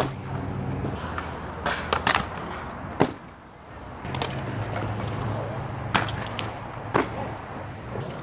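Inline skate wheels rolling over concrete with a low steady rumble that dips for about a second near the middle and then picks up again. Sharp clacks of hard wheels or frames striking concrete come every second or so.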